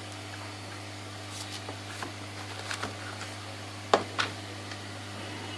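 Light clicks and taps of small metal repair tools being handled during BGA chip reballing, the sharpest pair about four seconds in, over a steady low electrical hum.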